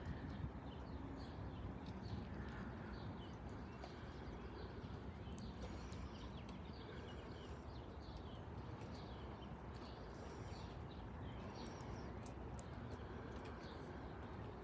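Birds chirping and calling faintly, many short chirps with a couple of high arched calls, over a steady low background rumble.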